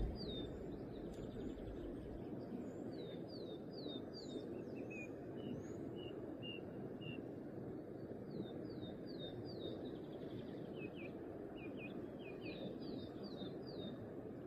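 Songbirds calling in runs of short, high chirps that drop in pitch, over a steady low rushing background of outdoor ambience.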